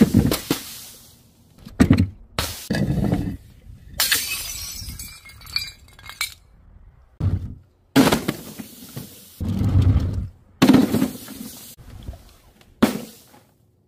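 A series of separate crashes, about nine in all, as glass and other objects smash on tile paving, with glass breaking and shattering.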